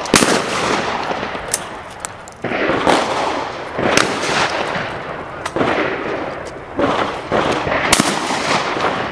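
Shotgun shots on a clay-shooting range: about eight irregularly spaced shots, some louder and some fainter, each trailing a long echo. The strongest comes a little before the end.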